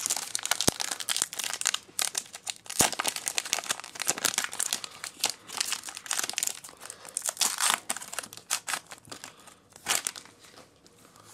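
Foil Pokemon booster pack wrapper being torn open and then crinkling as the cards are slid out and handled, in quick crackly bursts. It quietens near the end as the wrapper is set aside.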